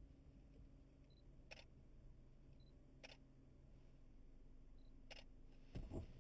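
Near silence inside a slowly moving car: a faint low hum from the car, broken by three faint clicks spread a second or two apart and a soft thump near the end.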